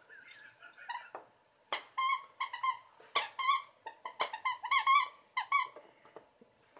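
A puppy chewing a plush squeaky frog toy, squeezing out an irregular, rapid run of squeaks, each wavering in pitch, from about two seconds in until near the end.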